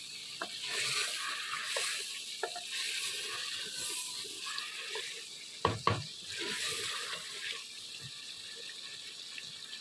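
Chicken pieces sizzling in ghee with crushed garlic and ginger in a clay handi, stirred with a wooden spoon that scrapes and knocks against the pot. The loudest moment is two quick knocks a little past halfway, and the sizzle thins near the end.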